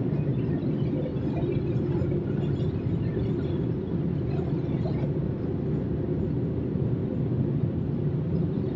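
Machinery of a breakfast cereal extrusion line running, a steady low hum and rumble with no change.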